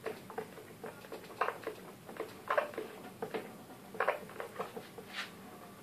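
Short, irregular scratching and scraping strokes of a hand tool boring pilot holes for screws into the wooden baffle of a subwoofer box, around the speaker's frame.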